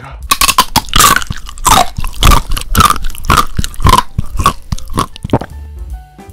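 Loud, close-miked crunchy chewing, about three crunches a second, that stops about five and a half seconds in.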